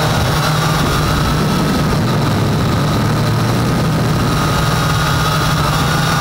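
Syma X8 quadcopter's four brushed motors and propellers running steadily in flight, a low hum with a higher whine, heard from the camera mounted on the drone.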